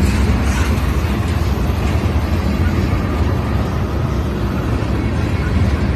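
Loaded ethanol tank cars of a freight train rolling past, steel wheels on rail making a steady rolling noise, strongest in the low end.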